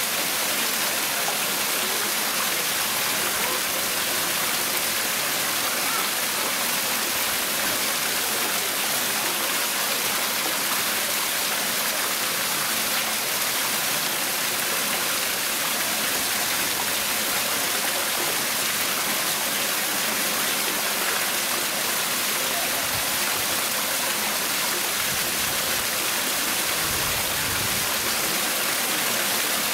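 Steady rushing of running water, an even hiss with no breaks and no other sound standing out.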